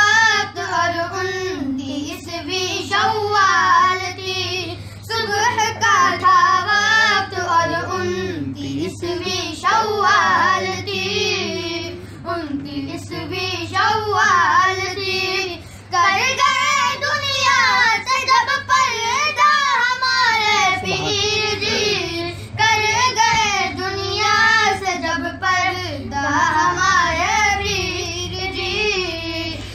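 Voice singing a manqabat, an Urdu devotional praise poem, in long phrases with wavering, ornamented notes.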